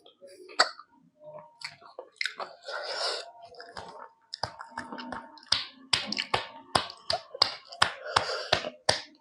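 Close-miked mouth sounds of someone eating rice and mutton curry: chewing with a run of sharp, wet smacking clicks, about two or three a second through the second half.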